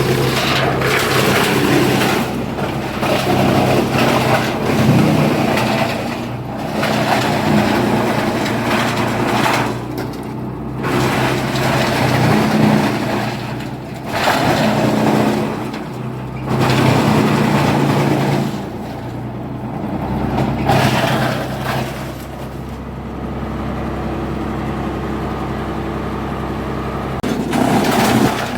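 Heavy-duty wood chipper running under a steady engine drone, with loud, noisy surges every few seconds as wood is fed in and chipped.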